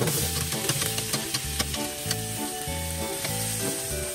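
Chopped vegetables tipped from a metal colander clattering onto a hot roasting tray, with a sizzle from the hot fat in the tray. Background music with a steady beat plays underneath.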